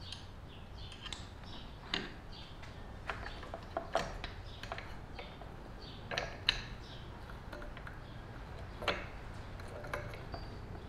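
Steel chainsaw chain and a bench-mounted rivet spinner being worked by hand: irregular clicks, rattles and light knocks as the links are set in the tool and its crank is turned, with a few sharper clicks about two seconds apart.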